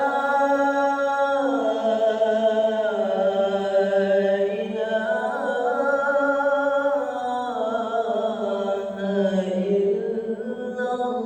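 A man's solo voice chanting the Islamic call to prayer (adhan), drawing out the closing phrase in long, ornamented held notes that slide up and down without a break. The reciter has a cough and a head cold.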